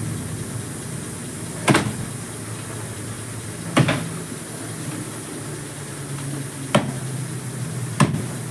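Plastic water bottle flipped and landing on a tiled floor: four sharp knocks at uneven intervals.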